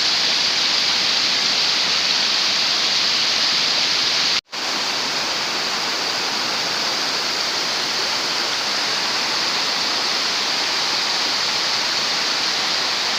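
Waterfall rushing steadily, a loud even hiss of falling water. It cuts out for an instant about four and a half seconds in, then carries on.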